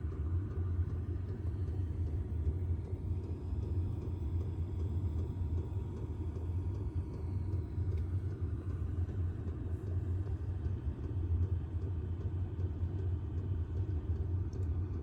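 Diesel air heater running with a steady low rumble. Soon afterward the heater is switched off.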